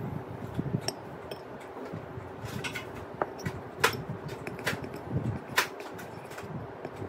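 Small spoon stirring in a bowl, scraping and clinking against its sides, with three sharp clinks about a second apart in the second half.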